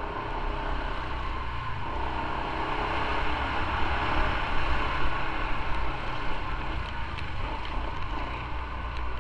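Motorcycle engine running steadily at low speed, with a rushing hiss of wind and wet road that swells in the middle.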